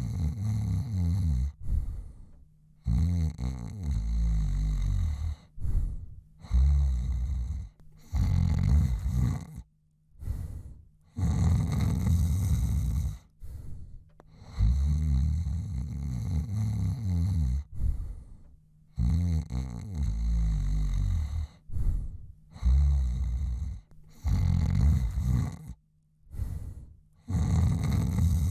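A man snoring: rough snore breaths, one to a few seconds each, follow one another with short pauses between them.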